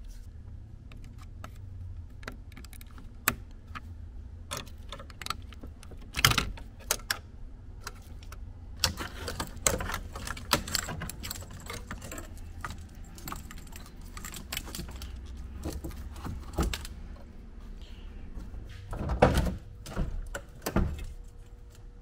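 Hand tools and loose interior parts being handled during a dash teardown: scattered sharp clicks, knocks and short metallic rattles over a low steady hum, busiest in the middle and again near the end.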